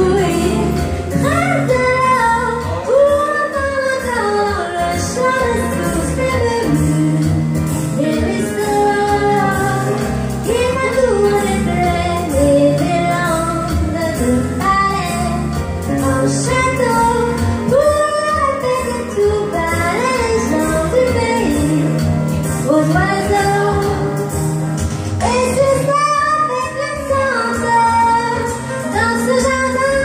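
A woman singing a French song with musical accompaniment, in long held notes that waver, heard through a phone microphone in a reverberant room.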